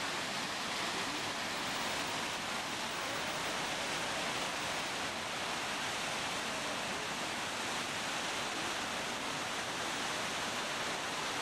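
The Rhine Falls' water rushing steadily down the rocks, an even noise without a break.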